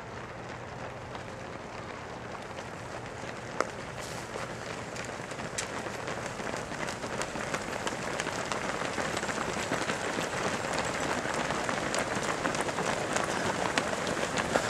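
Many overlapping footsteps of a large pack of runners on an asphalt road, a dense crackle of footfalls that grows steadily louder as the pack comes close, with one sharp click about three and a half seconds in.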